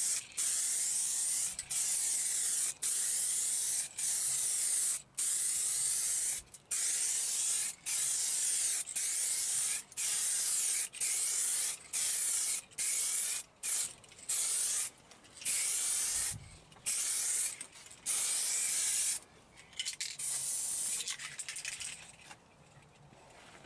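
Aerosol rattle can spraying clear coat: a high hiss in passes about a second long with brief breaks between, repeated many times. Near the end the passes get shorter and fainter, then stop.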